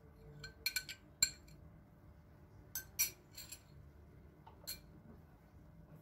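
A metal spoon clinking against a small glass bowl: a scattering of light, sharp taps, most of them in the first three and a half seconds, as egg yolks are scraped out of the bowl.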